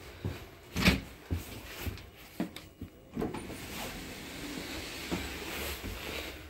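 A passenger train's interior doors being handled and passed through: a sharp clunk about a second in, then several lighter knocks, followed by a steady rushing noise.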